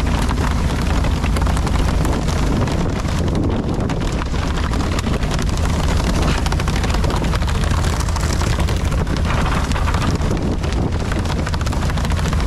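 Steady noise aboard a pole-and-line tuna fishing boat: the boat's engine running, water jets spraying onto the sea surface, and wind buffeting the microphone.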